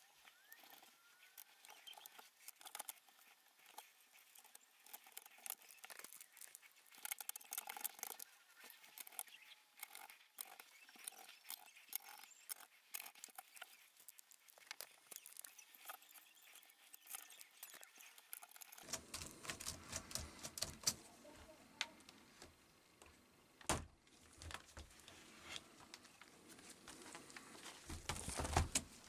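Light clicks, taps and rustles of plastic laptop parts being handled and fitted together by gloved hands as the laptop is reassembled, with a sharper knock about two-thirds of the way through.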